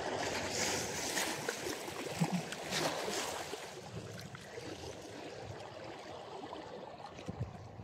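Small waves washing and lapping over shoreline rocks: a steady rush of water, a little louder in the first few seconds.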